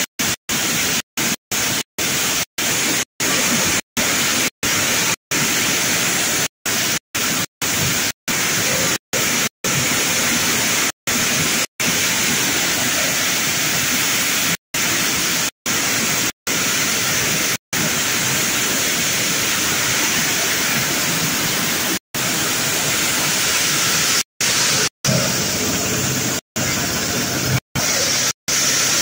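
Box-type corn sheller running, a steady dense rushing noise of the machine with shelled kernels pouring through it. The sound cuts out for an instant dozens of times.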